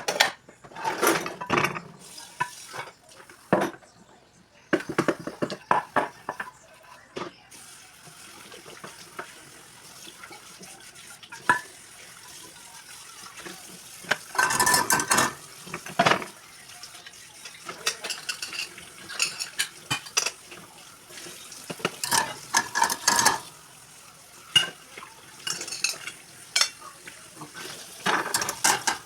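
Kitchen utensils clinking and scraping against pots and dishes in irregular clatters. Food sizzles in a pan as a steady hiss from about a quarter of the way in.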